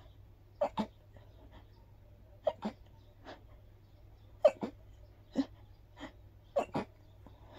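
A person sneezing over and over in short, breathy bursts, several coming in quick pairs. The loudest falls about halfway through. The sneezing is hay-fever sneezing set off by grass pollen.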